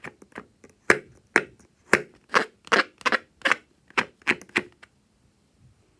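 A quick series of sharp, crisp clicks, about two or three a second, ending a little before five seconds in.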